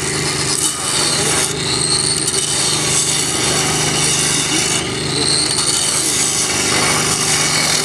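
A power grinder working the steel of a freshly thermite-welded rail joint, throwing sparks: a steady, loud abrasive grinding with a high whine that rises in pitch twice as the disc is loaded and eased.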